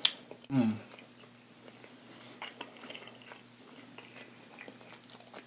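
A person chewing food close to the microphone: faint, scattered wet mouth clicks, with a sharp click at the start and a brief hum of the voice about half a second in.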